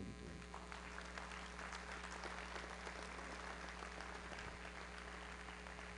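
Congregation applauding, faint and spread out, starting about half a second in, over a steady electrical mains hum.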